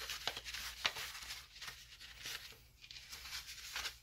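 Paper banknotes rustling and flicking as a stack of notes is handled in and out of a paper envelope: a quick, irregular run of crisp paper rustles, thinning out around the middle.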